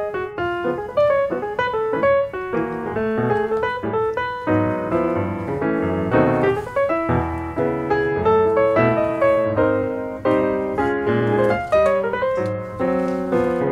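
Background piano music: a quick, flowing run of struck notes.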